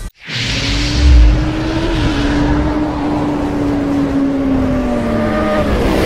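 Motorcycle engine sound effect: a loud, steady engine note over a rushing whoosh, with a heavy low thump about a second in. The engine's pitch sinks slowly near the end.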